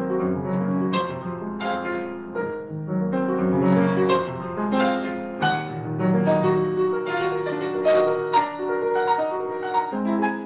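Upright piano played solo: a flowing melody of struck notes over held bass notes, heard over a Zoom video call.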